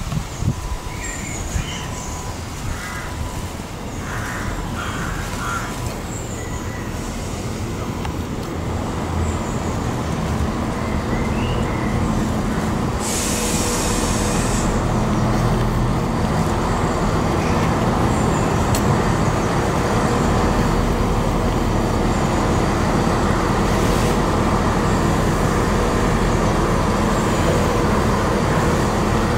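EMR Class 170 Turbostar diesel multiple unit running into the station and drawing up at the platform, its underfloor diesel engines growing steadily louder as it nears. A short burst of hiss comes about halfway through, and birds chirp faintly at the start.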